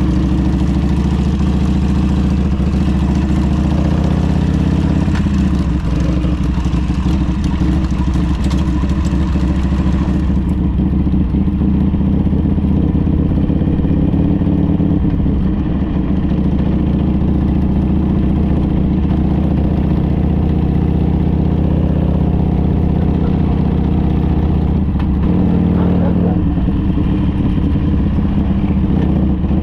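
Harley-Davidson trike's V-twin engine running steadily with an even, unchanging note.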